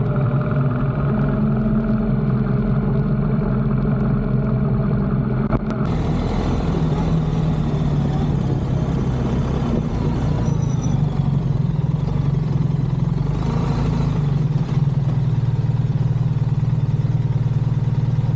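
BMW R1300 GS Adventure's boxer-twin engine running steadily under way. About six seconds in, a steady hiss of wind and road noise abruptly joins it.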